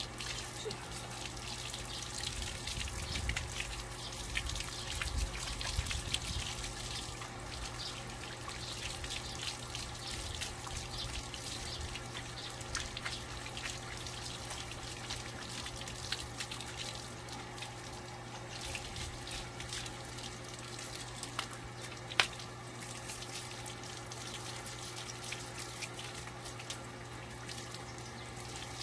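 Water running steadily from a garden hose used to bathe a dog, a continuous hiss over a low steady hum, with a single sharp click about twenty-two seconds in.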